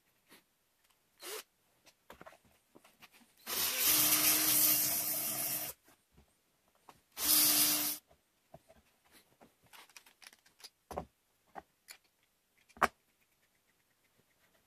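Handheld power drill boring into plywood in two bursts, about two seconds and then about one second, with a steady motor hum. Light knocks and taps of wooden pieces being handled come before and after.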